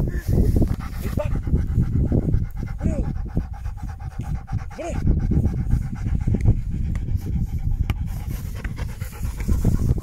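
Young rottweiler panting with his mouth open after running in the play.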